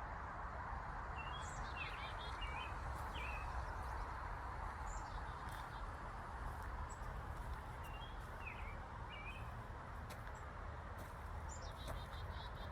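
Songbirds chirping: short calls that slide downward, coming in small clusters every few seconds, over a steady outdoor hiss and low rumble.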